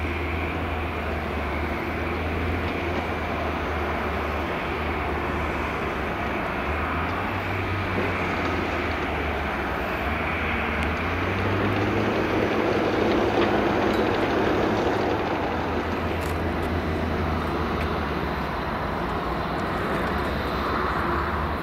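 Boeing 787-8 Dreamliner's twin turbofan engines running at taxi power: a steady jet engine sound with a low hum, swelling a little about twelve to fifteen seconds in.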